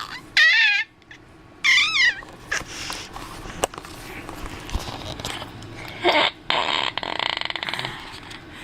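Baby vocalizing: two short, wavering squeals in the first two seconds, then a raspy, rattling growl about six seconds in that lasts over a second.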